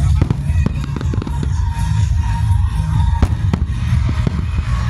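Aerial firework shells bursting in a display, a run of sharp bangs and crackles with two heavier booms a little past three seconds in, over a steady low rumble. Music plays underneath.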